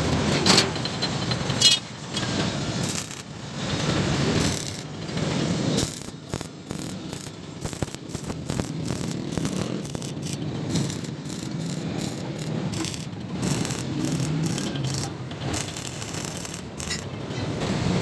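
Steel bars clinking against a sheet-steel concrete mixer body near the start, then the intermittent sizzling crackle of stick (arc) welding as the bars are tack-welded on.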